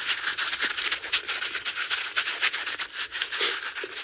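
A tennis ball rubbed and scratched close against a microphone as an ASMR trigger: dense, uneven scratchy strokes, mostly high in pitch.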